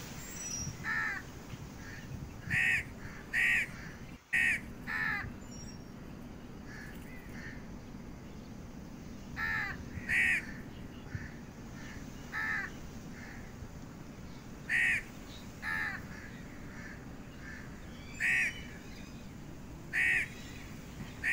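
Crows cawing: about a dozen short, harsh single caws, some in quick pairs a second or less apart, spread irregularly over a steady low background noise.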